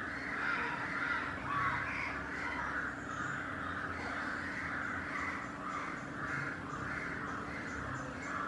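Harsh animal calls repeated about twice a second, keeping up without a break, over a faint steady low hum.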